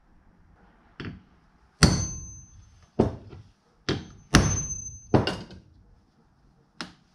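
Claw hammer striking a 4.5 mm hole punch, driving it through a leather strap into a wooden block to punch the strap's end hole. Irregular sharp blows, the loudest about two and four and a half seconds in, two of them with a short metallic ring, and a lighter tap near the end.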